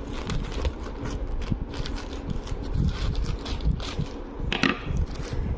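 Scissors snipping through a plastic courier mailer bag, with the plastic crinkling and rustling as it is cut and pulled open, a louder crinkle near the end, over a low rumble.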